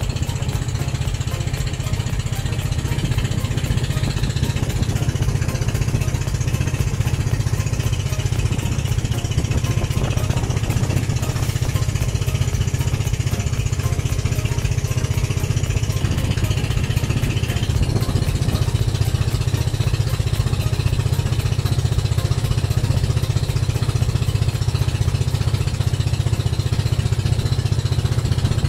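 Outrigger boat's engine running steadily under way, heard from on board, a loud, unchanging low drone.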